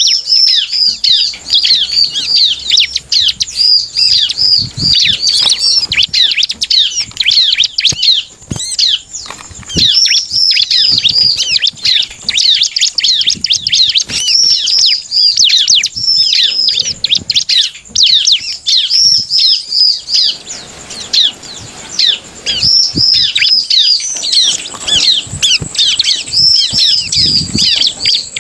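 Bar-winged prinia (ciblek) singing a fast, loud run of repeated high chirps with only a brief break about two-thirds of the way through, the hard-driving song used to provoke other prinias into singing. Wing flutters and soft knocks of the bird hopping in its cage come through beneath.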